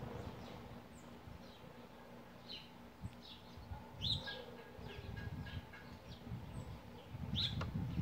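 Small birds chirping at a feeding spot: short high chirps and quick falling notes, scattered and irregular. A low rumble builds near the end.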